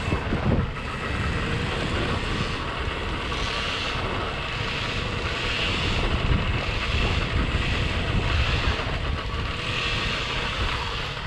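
Wind rumbling on an action camera's microphone, with a rushing hiss that rises and falls.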